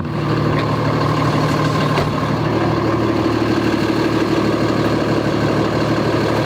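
Cummins turbo-diesel pickup engine running steadily at low speed, a constant low drone.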